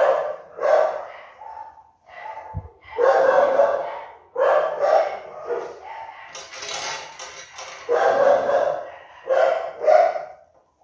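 Dog barking over and over, about ten barks coming roughly a second apart, some of them in quick pairs.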